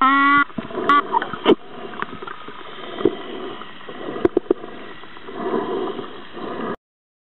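Bottlenose dolphin vocalising underwater: a short squawk right at the start and a brief one about a second in, with sharp clicks scattered through, over a steady underwater hiss that cuts off shortly before the end.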